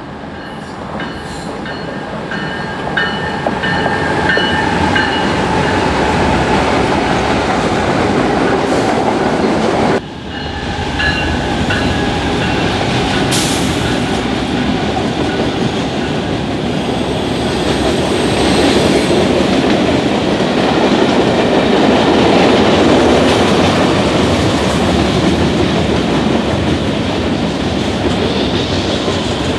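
Train passing close by: cars rolling over the rails with a steady clatter and thin high tones of wheel squeal, the sound building over the first few seconds. There is a sudden short dip about ten seconds in.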